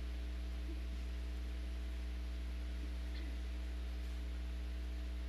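Steady electrical mains hum, a low drone with a stack of overtones, under a faint hiss.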